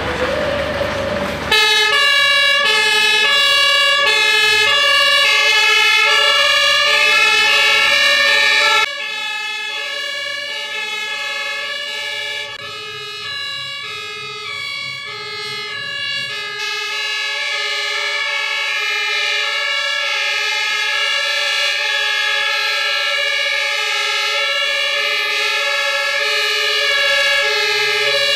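Fire engine two-tone siren (German Martinshorn), alternating steadily between a high and a low note. It drops suddenly in level about nine seconds in and keeps going.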